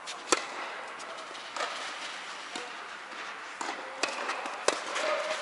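Tennis balls being struck by rackets during a doubles point on an indoor court. The serve hit about a third of a second in is the sharpest and loudest, followed by rally hits and ball bounces about once a second.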